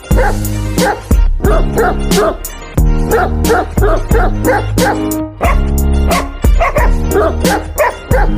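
Loud music with a heavy bass beat, over which a dog yips and barks in quick, rhythmic runs of short, high calls.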